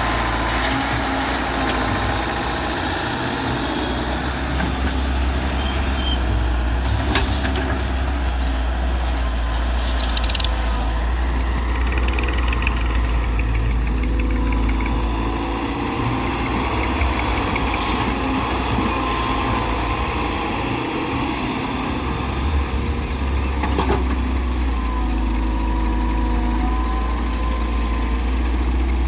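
Hyundai excavator's diesel engine running steadily with a deep drone, its level dipping and rising a little. A few brief knocks sound, near 7 seconds and again around 24 seconds in.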